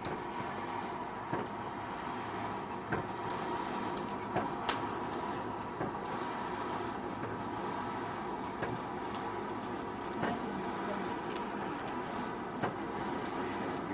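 Blacksmith-shop ambience: a steady hiss with a faint steady hum, broken by a few scattered light, sharp clicks of metal tools.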